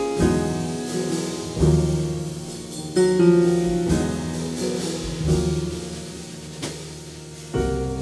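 Jazz piano trio playing: an upright piano strikes a series of full chords that ring on, over a double bass line and drums.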